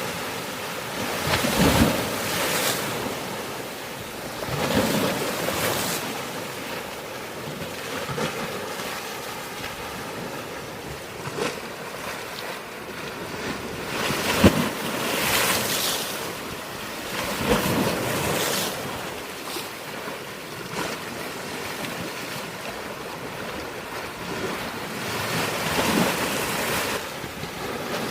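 Sea waves breaking on a rocky shore: a continuous wash of surf with a louder crash every few seconds, one of the sharpest about halfway through. Wind noise on the microphone.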